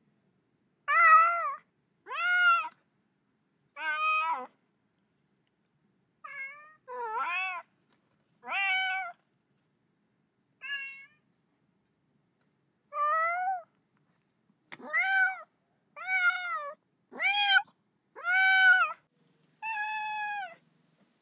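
A cat meowing over and over, about a dozen separate meows. Each meow is under a second long and rises then falls in pitch. There is a pause of about two seconds partway through.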